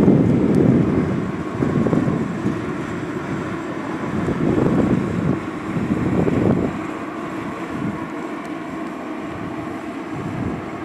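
Double-deck passenger train rolling along the track: a low rumble of wheels on rails that swells and fades in waves for the first several seconds, then settles into a steadier, quieter run, with a faint steady hum above it.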